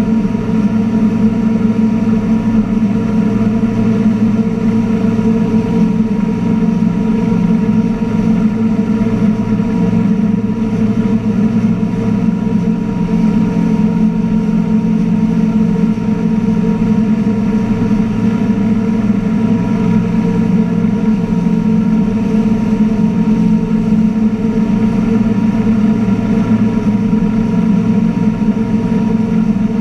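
2015 NXT wake boat's engine running steadily under way at surf speed, with the rush of the wake and wind. The engine drone holds an even pitch throughout.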